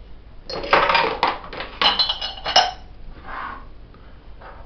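Metal parts of a meat grinder clanking and clinking against each other and the counter as the grinder is unscrewed and taken apart, a cluster of knocks in the first three seconds, some briefly ringing.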